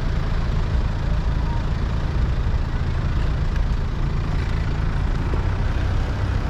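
Steady low rumble of a bike ride along a city street: wind on an action camera's microphone mixed with road traffic.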